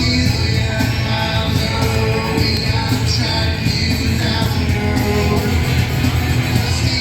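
Rock music with singing, playing steadily.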